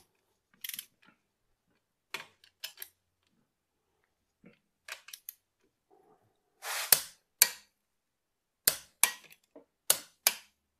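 Click-type torque wrench tightening connecting-rod cap bolts on a Toyota 5E-FE engine: a few faint ticks, then sharp clicks, several in quick pairs, over the second half as the bolts reach their set torque. The bolts are new and, it seems, still settling a little, so the wrench is clicked again.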